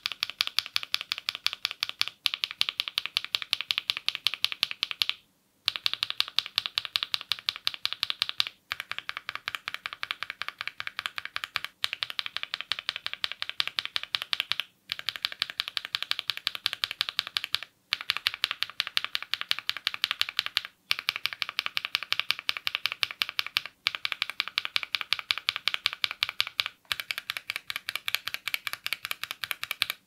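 Factory-lubed linear mechanical keyboard switches being pressed and released rapidly, one bare switch at a time, at about five clicks a second. The clicks come in runs of about three seconds with brief pauses between. The HMX Swift is heard at first and the MZ Z1 by midway.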